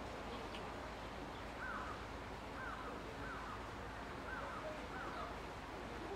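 A bird calls about five times in short, quick notes over steady outdoor background noise.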